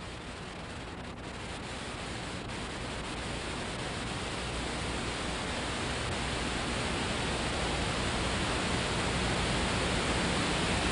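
Steady hiss of analogue tape noise with a faint low hum, slowly growing louder; no programme sound over it.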